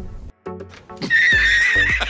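Background music, then about a second in, a horse whinnying for about a second with a wavering high pitch, laid over the music as a sound effect.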